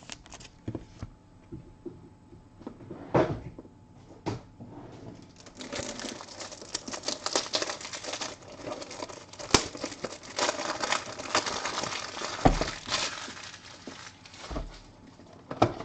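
Trading cards and their packaging being handled: scattered taps and clicks, then several seconds of crinkling plastic wrapper and rustling cards.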